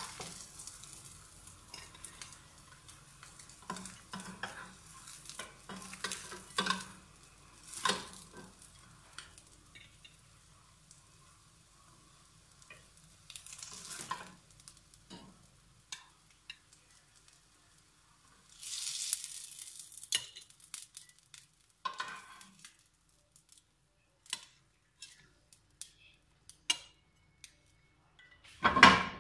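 Egg-dipped bread slices sizzling faintly in a non-stick grill pan with the burner just turned off, the sizzle dying away, while a fork and spatula scrape and tap on the pan as the slices are lifted out. A louder clatter of utensils comes at the very end.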